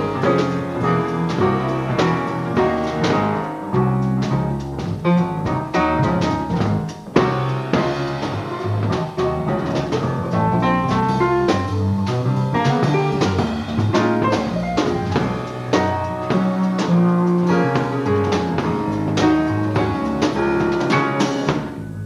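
Small jazz band playing: electric bass and drum kit with a grand piano, in a steady rhythm.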